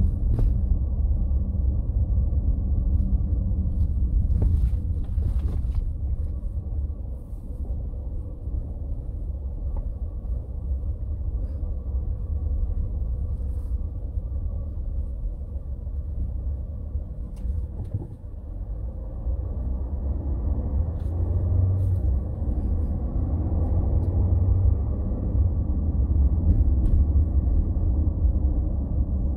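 Steady low rumble of a car driving on city streets, heard from inside the cabin: engine and tyre noise that swells somewhat in the last third.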